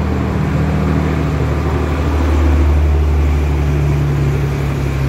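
A passenger car's engine running as the sedan drives slowly past close by: a low, steady hum that is loudest about halfway through and fades just after.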